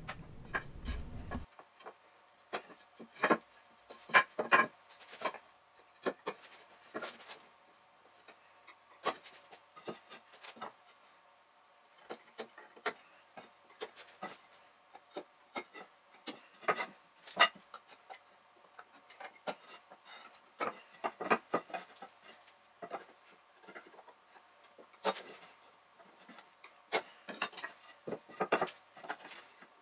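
Woodworking handling noises sped up four times: pencil and marking tools tapping and scratching on hardwood boards, and boards knocked and shifted on the bench, heard as an irregular run of quick clicks and rubs.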